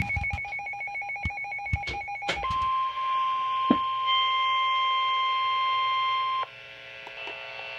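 Emergency broadcast alert tones: a rapid pulsing two-tone beeping for about two and a half seconds, then a steady single-pitch warning alarm tone for about four seconds that cuts off abruptly, leaving a faint radio hum.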